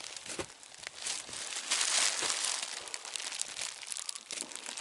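Crinkling, rustling handling noise, loudest about two seconds in.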